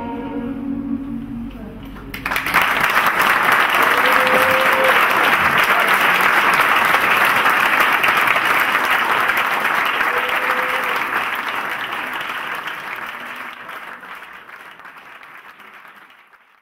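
A choir's final held chord dies away, and about two seconds in an audience breaks into loud applause. The applause gradually fades out toward the end.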